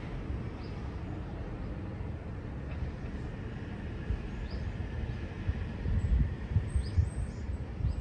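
Wind buffeting the microphone in gusts, stronger near the end, with a few faint, short bird chirps.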